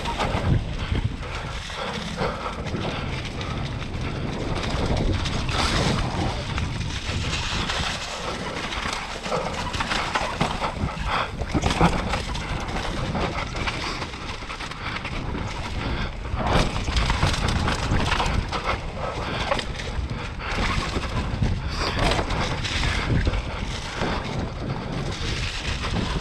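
Mountain bike ridden fast downhill on a slippery, leaf-covered dirt trail: steady wind buffeting on the microphone and tyres rolling through fallen leaves and dirt, with frequent rattles and knocks from the bike over bumps.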